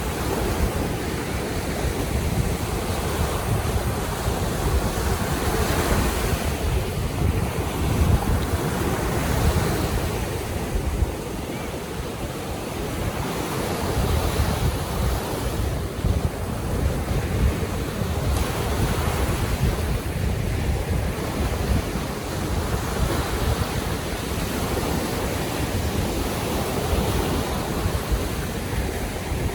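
Baltic Sea waves surging and washing in every few seconds, with wind rumbling on the microphone.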